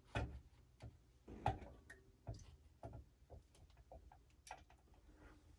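Faint, irregular clicks and light knocks, about a dozen, from a Cooler Master Hyper 212 tower CPU heatsink being handled and set in place on the CPU inside a PC case.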